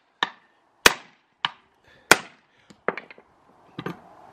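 Hammer striking to drive an aluminum bushing into a Ford 8.8 differential housing: about seven sharp, ringing blows, roughly one every half second or so, with a quick flurry about three seconds in. This is the hammering method that does not work for these bushings.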